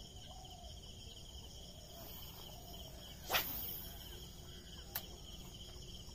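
Insects chirping steadily in a fast pulsing trill. About three seconds in there is a brief sharp hiss, the loudest sound, and a faint click follows near five seconds.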